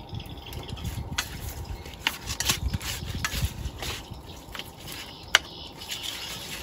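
Cooking over a wood fire: scattered sharp clicks and crackles over a low rumble, the sharpest click a little over five seconds in, with faint liquid and pot sounds.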